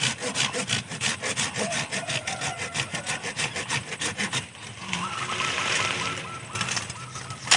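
Hand pruning saw cutting through the woody stem of a sancang bonsai with quick, regular back-and-forth strokes, which run together into a smoother rasp for a moment about five seconds in.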